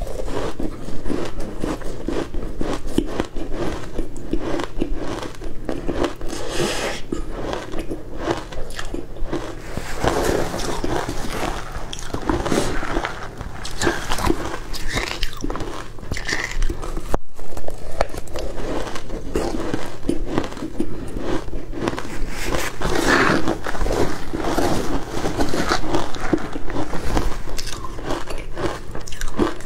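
Close-miked crunching and chewing of crushed ice coated in matcha powder: a dense, steady run of crisp crunches as the ice is bitten and ground between the teeth, with a very brief dropout a little past halfway.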